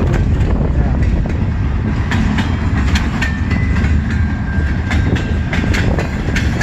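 Freight train cars rolling past, a heavy steady rumble with wheels clicking over rail joints. A faint thin high whine sounds for a few seconds in the middle.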